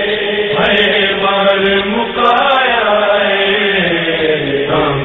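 Male vocal chanting of a noha, a Shia lament, in long held notes that slide slowly up and down.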